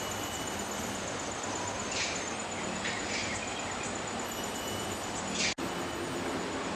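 Outdoor tropical ambience: a steady hiss with a faint high insect drone and a few short bird chirps. The sound drops out for an instant about five and a half seconds in.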